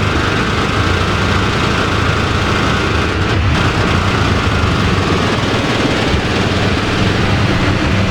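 Dark, distorted electronic MIDI ringtone sound: a loud, steady, noisy buzz over a low hum, with no clear melody.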